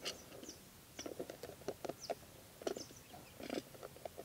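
Plastic compression fitting creaking and clicking in short, irregular bursts as its nut is turned with multi-grip pliers while the body is held. A few short bird chirps sound above it.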